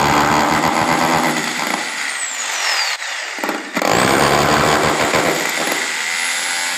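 Handheld electric drill boring small holes through a wooden nest box. The motor's whine falls as it slows about two seconds in and it stops briefly, then it starts again with a rising whine and runs on steadily.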